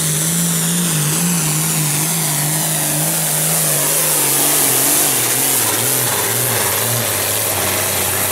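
John Deere pulling tractor's diesel engine running hard under load while dragging a weight-transfer sled. Its note holds steady, then sags lower over the last few seconds as the engine lugs down under the building sled weight, with a high whine above it that falls along with it.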